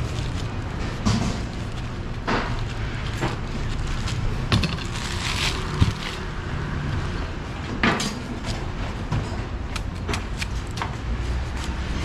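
A large kitchen knife slicing the peel off pineapples, making irregular cutting strokes, with a sharp knock of the blade on the wooden cutting board about six seconds in. A steady low background rumble runs underneath.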